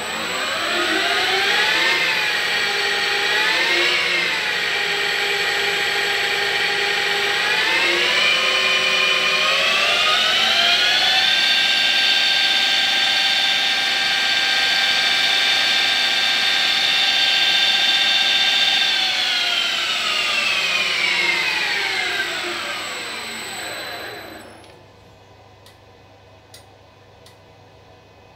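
CNC lathe spindle motor run by a variable-frequency drive, whining as it spins up, wavering twice, stepping up in speed twice, holding steady, then winding down to a stop a few seconds before the end. The owner suspects a VFD problem or a control setting behind this behaviour.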